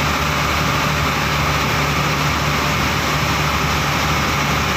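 Outrigger pumpboat engine running steadily under way, with water rushing along the hull and wake.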